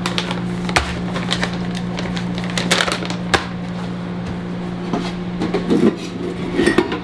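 Kitchen handling noises: scattered light clicks and knocks of packaging and dishes being picked up and set down over a steady low hum, with a busier clatter near the end.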